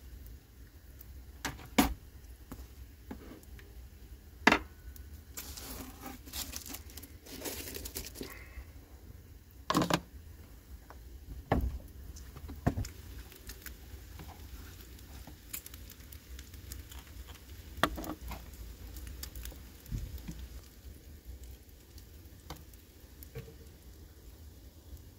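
Food being prepared by hand: a knife and utensils clicking and knocking against a plastic plate and wooden worktop as bread rolls are buttered and filled, with about half a dozen sharp knocks scattered through. A crinkling rustle of handling runs for a few seconds about five seconds in.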